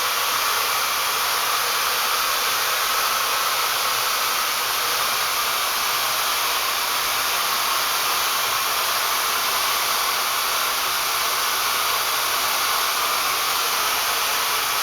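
Steady, even rushing hiss of air flow from a fiber laser welding system at work, with no break or change.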